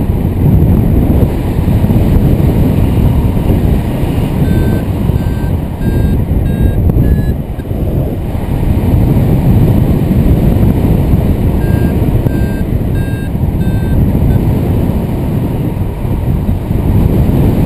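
Wind rushing hard over the microphone in accelerated paraglider flight. Over it, a variometer gives short, evenly spaced beeps in two runs: about five a few seconds in, rising a little in pitch, then four more past the middle. The beeps signal climbing air.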